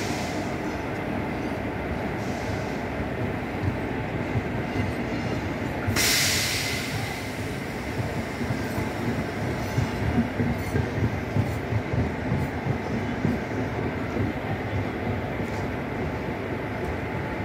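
Coaches of the Secunderabad–Guntur Intercity Express passenger train rolling past: a steady rumble of wheels on track, a brief hiss about six seconds in, and a run of rhythmic clacks of wheels over rail joints in the second half.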